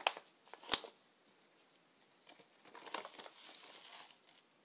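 Two sharp knocks in the first second, the second the louder, then plastic packaging crinkling as it is handled for a second or so near the end.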